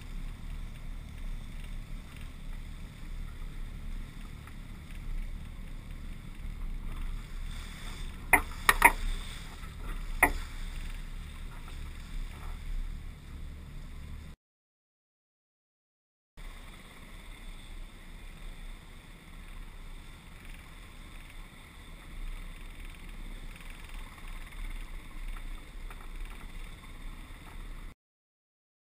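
Islander 36 sailboat under way: a steady rumble of wind on the microphone and water rushing along the hull. A few sharp clicks come about eight to ten seconds in. The sound drops out for a couple of seconds about halfway through.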